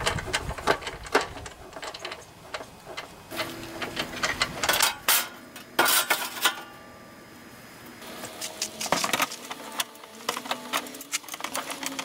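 Quick runs of small metallic clicks and light knocks from hand tools and engine parts being handled while the throttle linkage is refitted to the carburetor. The clicks come in clusters, with a quieter stretch in the middle.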